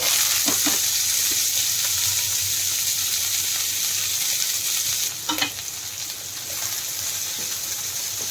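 Chopped onion, capsicum and green chilli hitting hot oil in a pan and sizzling loudly all at once, with a spatula knocking against the pan as they are stirred. The sizzle eases a little after about five seconds.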